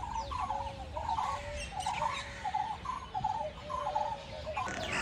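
Animal calls repeating rapidly and evenly, about two to three a second, each a short rattling note over a lower, drawn-out one; a different, noisier sound breaks in near the end.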